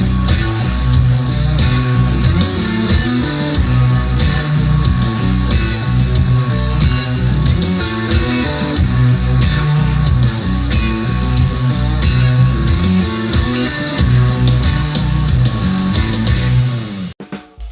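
Rock music with guitar and drum kit on a steady beat, played through Edifier R1280 bookshelf speakers. The track stops abruptly near the end.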